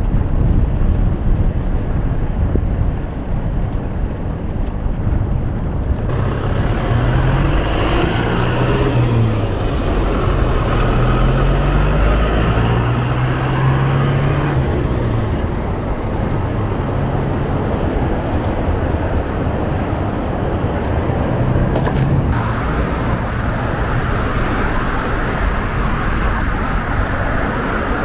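Road traffic on a multi-lane city street: cars and a truck going by with a steady low rumble, and engine tones rising and falling about a third of the way in.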